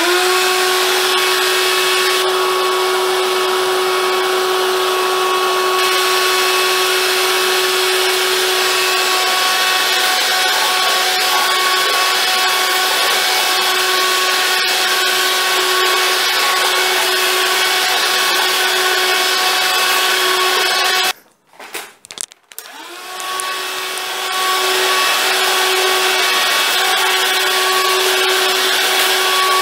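Cordless stick vacuum cleaner running from a wired-in hobby lithium battery, its motor giving a loud steady whine over a rush of suction while going over carpet. About two-thirds of the way through it cuts out, sputters briefly, and spins back up with a rising whine.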